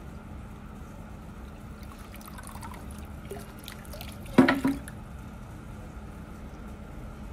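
Water trickling steadily from a bamboo spout into a stone water basin (tsukubai), with one brief sharp knock a little over four seconds in.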